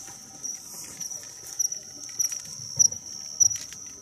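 Crickets chirping in a steady high trill, with a person's footsteps on sandy ground and brushing through leaves, about one step every half second in the second half.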